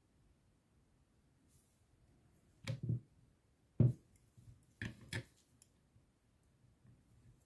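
A handful of short knocks and clicks from tools or parts being handled on a work surface, coming after a couple of seconds of quiet: a double knock, a sharper single one, then two more close together.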